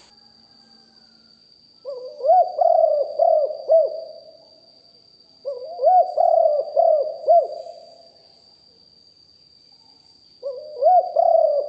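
Spotted dove cooing: three phrases of low, hooting coos, each a quick run of four or five notes, starting about two seconds in, again near the middle and near the end. A faint steady high whine sounds underneath throughout.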